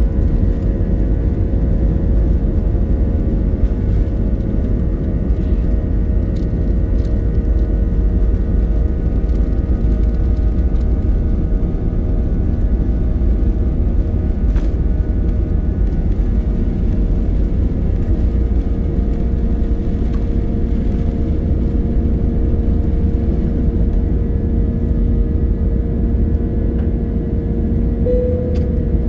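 Airbus A320's turbofan engines at takeoff thrust, heard inside the cabin: a loud, steady deep rumble with a droning engine tone through the takeoff roll and lift-off.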